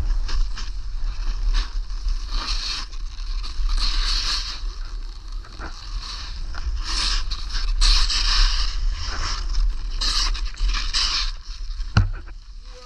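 Skis scraping and hissing over snow through a run of turns, the hiss swelling with each turn every second or two, over a constant low rumble.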